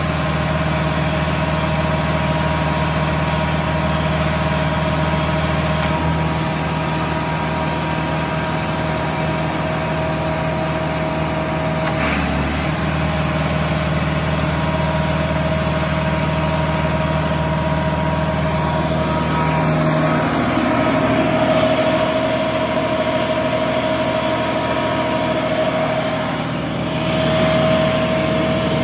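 Diesel generator running steadily under load from a load bank, its drone shifting several times as kilowatt load steps are switched in. One sharp click about 12 seconds in.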